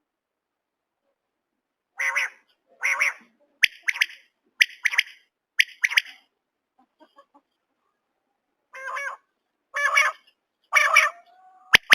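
Common quail calling: after a couple of seconds of silence, a string of short, sharp calls about a second apart, with a pause partway through and three fuller, harsher calls near the end.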